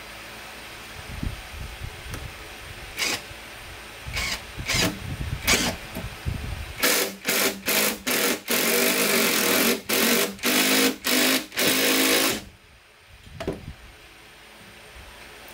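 Cordless drill driving into a thick block of wood: a few short bursts, then a string of quick pulses and a longer steady whine, stopping sharply about twelve seconds in. A few low knocks of wood being handled come before and after.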